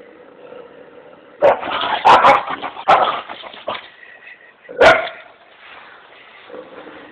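Dog barking: a rapid run of loud barks starting about a second and a half in and lasting about two seconds, then one more loud bark near the five-second mark.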